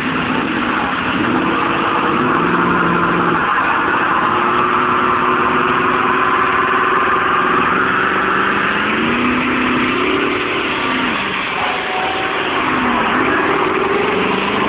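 Ford SVT F-150 Lightning's supercharged 5.4-litre V8 held at high revs during a burnout, the rear tyres spinning on the pavement. The revs hold steady, then dip and climb again a couple of times in the second half.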